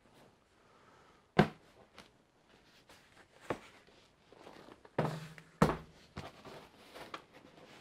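Cardboard boxes being handled and set down on a tabletop: four dull knocks, the loudest about a second and a half in and again a little past halfway, with faint cardboard handling noise between them.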